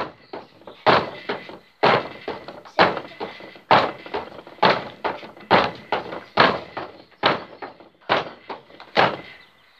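Jumping rope on a wooden deck: about ten even thuds of sneakered feet landing on the boards, roughly one a second, with lighter taps between them. The jumping stops near the end.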